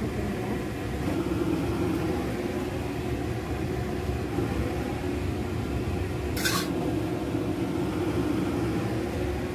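Steady machine hum with a constant low droning tone, and a short scrape about six and a half seconds in.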